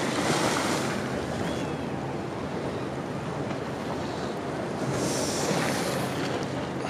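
Sea waves washing against a rocky shore, with wind on the microphone; the wash swells twice, near the start and about five seconds in.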